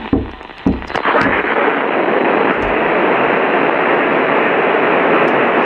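Loud, steady radio static hiss that takes over about a second in, after a moment of broken-up radio audio with a few low thumps.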